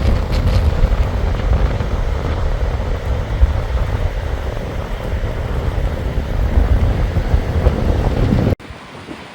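Strong wind buffeting the microphone: a heavy, gusting rumble that cuts off suddenly near the end to a quieter steady hiss.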